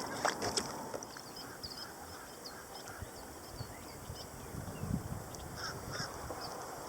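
Birds calling in short, high chirps repeated irregularly, with a few soft low thumps about two thirds of the way through.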